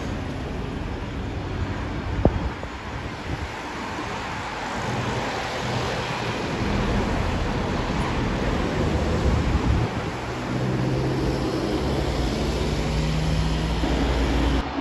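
Wind noise on the microphone over a steady outdoor rumble, with a low engine hum growing louder in the second half, as an aircraft draws nearer.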